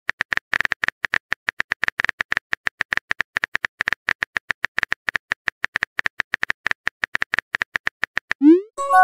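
Chat-app typing sound effect: a rapid, irregular stream of light keyboard clicks, many a second. Near the end, a rising chirp and a short chime-like tone mark a new message popping in.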